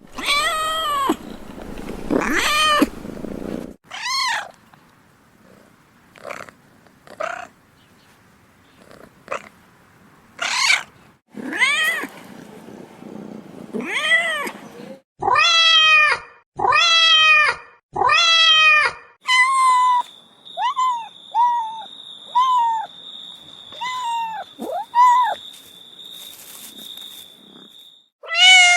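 Domestic cats meowing, one call after another with short gaps. Some meows are long and drawn out; past the middle come four long meows in a row, then a run of short, high-pitched mews.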